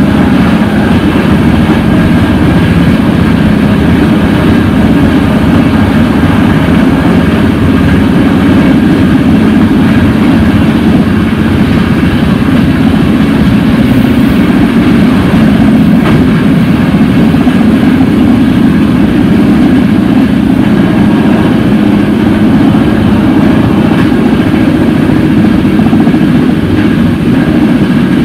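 Steady rumble of an Intercity passenger train running at speed, heard from inside its rear coach: wheels on the rails and the car's running noise.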